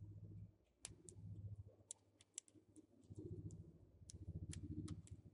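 Faint, irregular clicks of a small Phillips #0 screwdriver bit turning a screen-mounting screw in a netbook's metal LCD frame, over a low rumble that comes and goes in three stretches.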